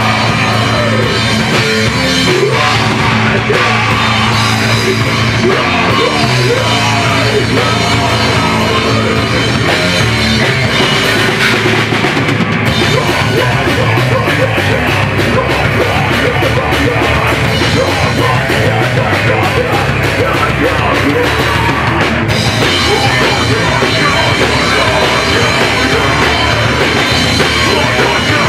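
Metalcore band playing live at full volume: distorted electric guitars, bass and drum kit, with shouted vocals into a handheld microphone. The drumming turns rapid and dense from about twelve seconds in for some ten seconds.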